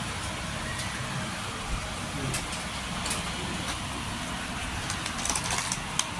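Steady background noise of a busy shop, with a few light clicks and rattles of plastic cosmetic packaging being handled, more of them near the end.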